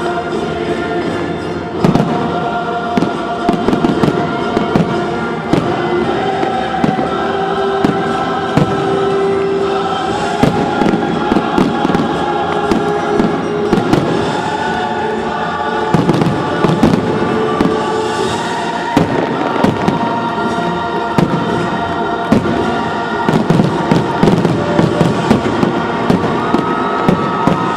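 Fireworks finale: aerial shells bursting in rapid, repeated bangs, growing denser in the second half, over choral music.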